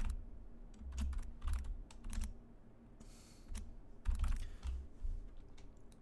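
Typing on a computer keyboard: slow, uneven keystrokes, each a sharp click with a dull thud as the key bottoms out, a word being typed letter by letter.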